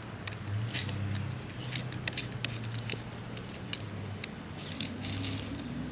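A small blade cutting and scraping through carpet fibres and string wound around a vacuum cleaner's brush roller: an irregular run of quick, sharp snicks and scratches. A low steady hum sits underneath.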